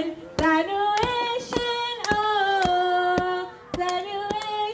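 Singing led by a woman's voice through a microphone, in long held notes, over a regular sharp beat about twice a second.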